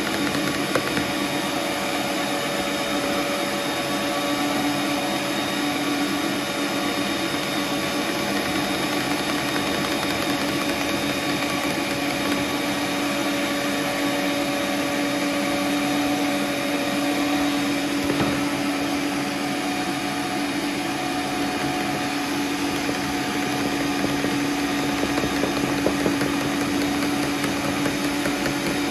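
Electric stand mixer running steadily, its motor giving a constant whirring hum.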